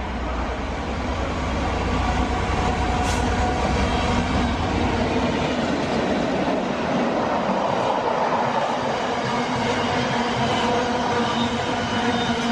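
A train running past on the rails, its noise building over the first two seconds and then holding steady, with several steady tones over the rumble of the wheels.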